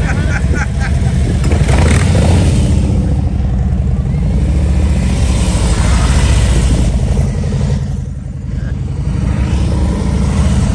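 Police touring motorcycle's engine running at low speed as the bike circles close by, a steady low-pitched engine note that dips briefly about eight seconds in.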